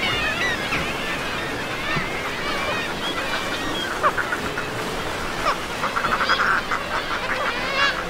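Seabird colony with many birds calling over one another in short harsh cries, and a fast rattling run of calls about six seconds in.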